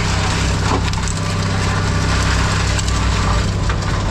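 Scrap metal crunching and scraping as a heavy machine handles it, over the machine's steady engine hum.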